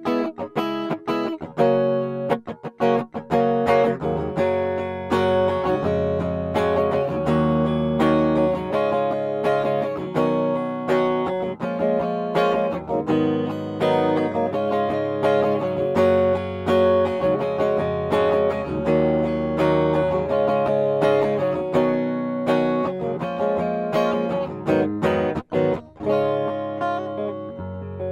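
Schecter C-1 Hellraiser electric guitar played through a clean tone with the pickup selector on both pickups together, picking a run of chords and single notes.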